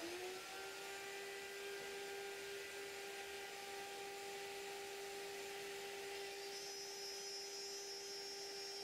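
Bosch GMF 1600 router, mounted under a router-table insert plate, winding up to speed right at the start and then running steadily with a high, even whine, spinning free with no wood being cut.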